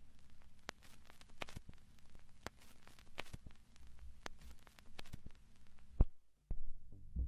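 Faint hiss and low hum with scattered sharp clicks and crackle; a louder click about six seconds in, then music begins just before the end.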